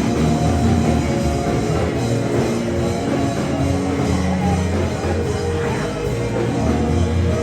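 Loud, continuous band music with drums and guitar.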